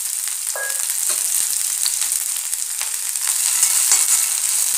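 Green bell pepper strips sizzling in hot oil in a kadhai, with a steady frying hiss. A slotted steel spatula stirring them clicks and scrapes against the pan now and then.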